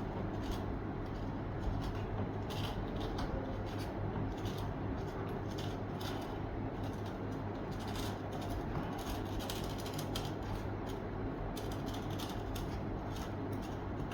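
Surgical blade cutting through foam shadow board: a run of irregular short scratchy ticks and rasps, over a steady low hum.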